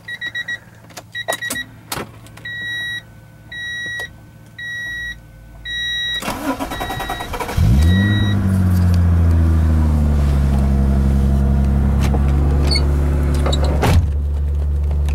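Dashboard warning chime beeping in a steady repeating pattern. About six seconds in, the starter cranks briefly and the 1992 Acura Legend's 3.2-litre V6 catches with a quick rise in revs, then eases down into a steady idle. A single click near the end.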